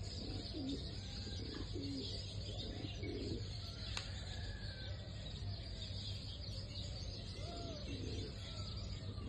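Birds cooing in a string of low, repeated calls, with a few thin higher chirps from small birds and a steady low hum underneath.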